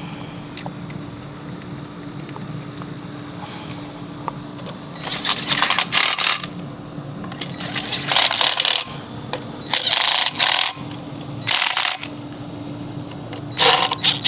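Cordless impact driver hammering in the bolts that hold a pool pump motor to its seal plate: five short rattling bursts, starting about five seconds in, over a steady low hum.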